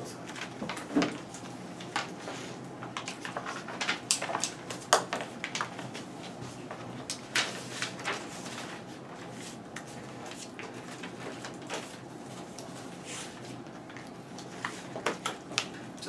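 Scattered small clicks and knocks, like objects being handled or people shifting in their seats, over steady room noise.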